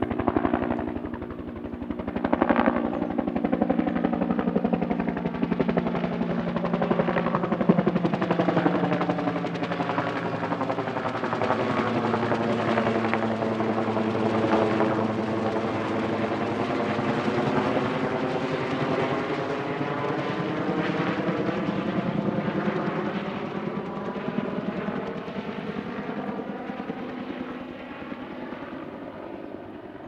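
Helicopter flying past, its rotor pulsing rapidly and steadily, fading away over the last few seconds.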